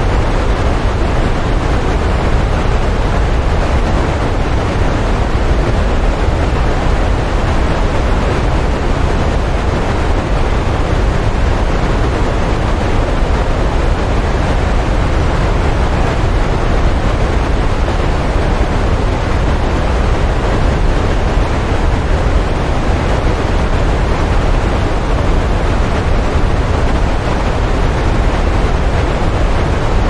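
Rocky forest stream rushing over boulders in small cascades: a steady, loud rush of water with a strong low rumble.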